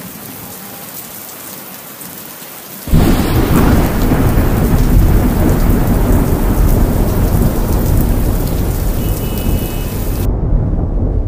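Heavy rain falling steadily, then about three seconds in a sudden loud thunderclap that breaks into a long, deep thunder rumble over the downpour, lasting until near the end.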